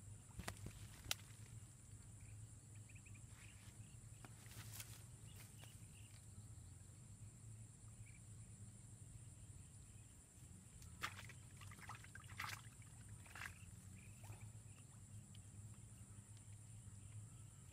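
Near-silent pond-side ambience: a faint steady high hum, with a few soft clicks and rustles about half a second and a second in, again near five seconds, and a cluster between eleven and thirteen and a half seconds.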